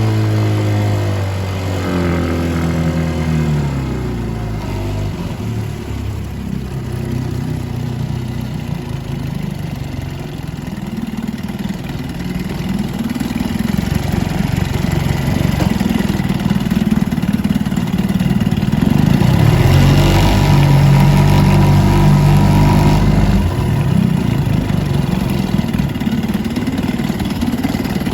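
1950 Corsair 7.5 (Scott Atwater) two-stroke outboard motor running under way. Its pitch falls as it is throttled back in the first few seconds, then wavers at mid-range speeds and rises in level for a few seconds about two-thirds through. At mid-range it makes a horrible sound, which the owner puts down to the two-piece drive shaft flexing.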